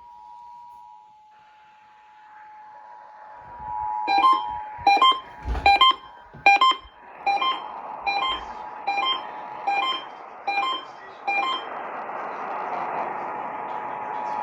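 Emergency Alert System two-tone attention signal, a steady dual tone near 853 and 960 Hz, sounding under a rising hiss. From about four seconds in, a run of about ten sharp beeps roughly three-quarters of a second apart cuts across it, the first few loudest.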